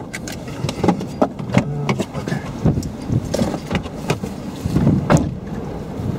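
A car pulling off the road: low vehicle rumble under irregular knocks and clatter.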